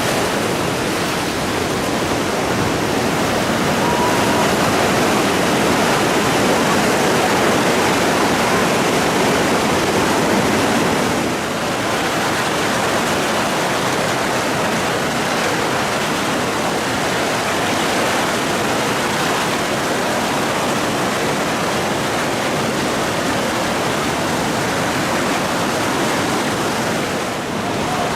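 River whitewater rushing: a loud, steady rush of water.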